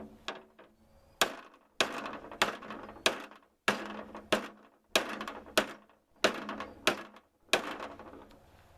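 Heavy homemade hammer pounding a dent out of a steel riding-mower deck: a few light taps, then about a dozen hard blows at roughly one and a half a second, each leaving the sheet-steel deck ringing briefly. The dent was pressing on the blade and keeping it from turning.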